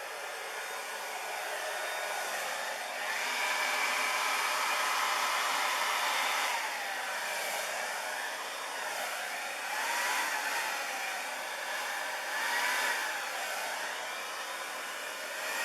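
Hair dryer running, blowing wet acrylic paint across a canvas in a Dutch pour blowout. A steady rush of air with a motor whine that wavers in pitch now and then.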